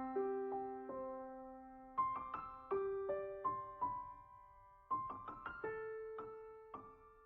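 Slow, soft solo piano music: small clusters of notes are struck about every three seconds and each is left to ring and fade away.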